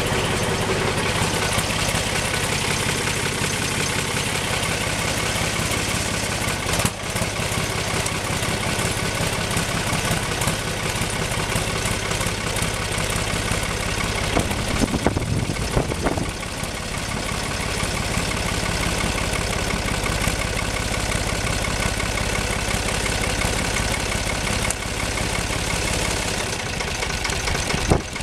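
Valmet 361 tractor's diesel engine running at idle, still cold after a start in frost, with a steady knocking beat. It gets briefly louder about halfway through.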